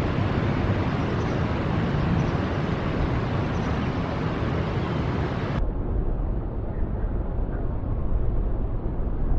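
An Airbus A321 airliner's jet engines during landing, heard as a steady, noisy rumble. A bit over halfway through, the sound abruptly turns dull and bass-heavy.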